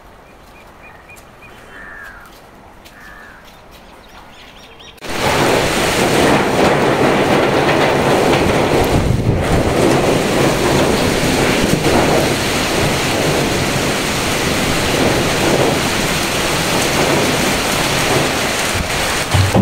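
Cyclone storm noise: loud, steady wind and rain that begins suddenly about five seconds in, after a quieter stretch with a few bird chirps.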